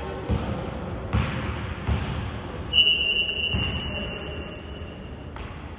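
A basketball bouncing on the court, four thumps spaced about three-quarters of a second apart. About halfway through, a referee's whistle sounds one long, steady blast of nearly three seconds, the loudest sound here.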